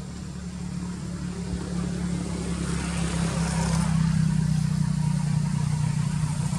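A motor vehicle's engine running with a steady low hum, growing louder over the first four seconds and then holding.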